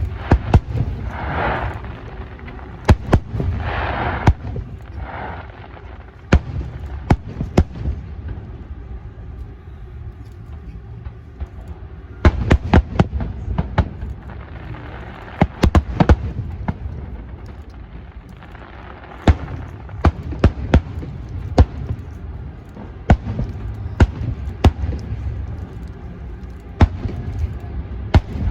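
Fireworks display: many sharp bangs of bursting shells, coming in irregular clusters of several at a time, over a steady low rumble.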